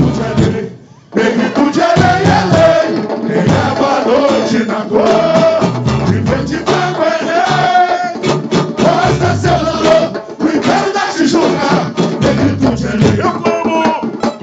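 Samba school performing live: voices singing over a samba percussion section, with crowd voices mixed in. The sound cuts out briefly about a second in, then resumes.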